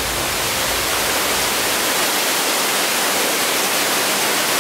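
Steady rushing of flowing stream water.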